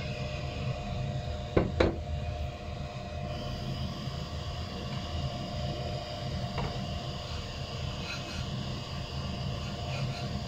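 A steady low mechanical hum with a faint steady whine above it, and two sharp knocks close together about one and a half seconds in.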